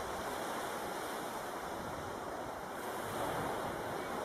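Steady wash of sea waves, swelling slightly about three seconds in.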